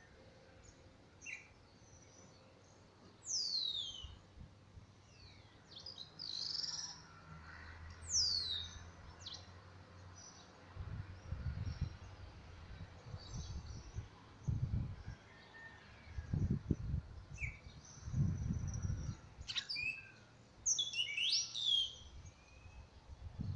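Wild birds chirping in short, quick down-sweeping whistles. In the second half there are several low, muffled scraping bursts from a star tortoise's hind legs digging into soil to make a nest hole for laying eggs.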